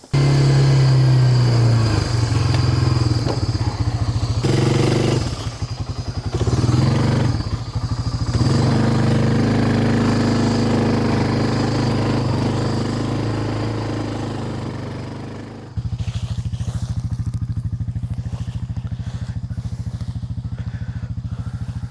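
Small vehicle engine running and changing pitch as it moves along. About sixteen seconds in, it drops to a steady, even idle.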